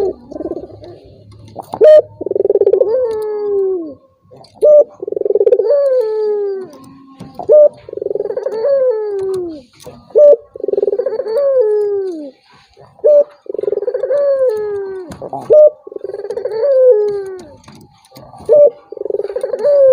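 Puter dove cooing over and over: about seven calls, each a short sharp note followed by a longer coo that falls in pitch, repeated every two and a half to three seconds.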